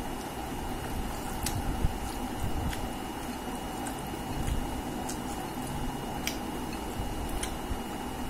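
Fingers mixing and squishing rice with chicken curry on a plate, with a few scattered small clicks. A steady background hiss and a faint high whine run underneath.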